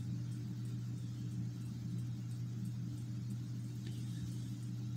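Steady low hum.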